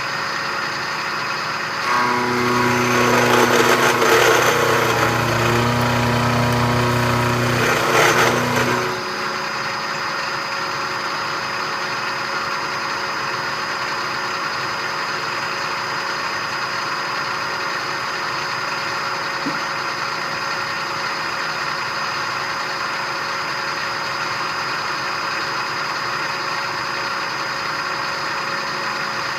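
Milling machine running with a steady hum and fixed whine. From about two to nine seconds a louder passage with a low buzz and added noise rises over it, then the steady run carries on.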